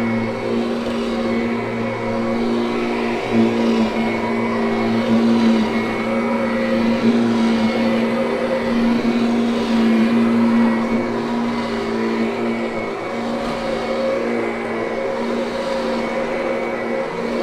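Kirby upright vacuum cleaner running on carpet, a steady motor hum that swells and dips slightly as it is worked over the pile.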